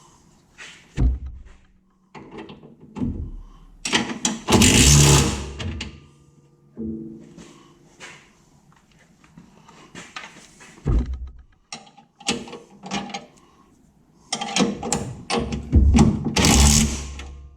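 Wrenches and tools clanking and knocking on metal while bolts on a car's rear axle and suspension are tightened. The knocks come at irregular intervals, with two longer, loud bursts of noise about four seconds in and near the end.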